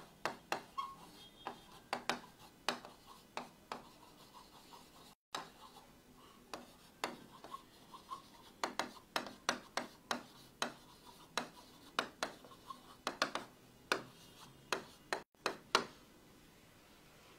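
Marker pen writing on a whiteboard: an irregular run of short scratchy strokes and taps, about two or three a second, as a line of words is written.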